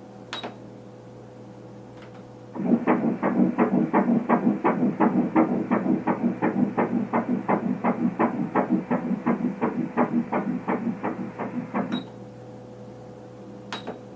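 Fetal heartbeat at about 167 beats a minute, played through an ultrasound machine's speaker at an 8-week scan. It is a rapid, even pulsing, about three beats a second, that starts abruptly a couple of seconds in and cuts off near the end, over a faint machine hum.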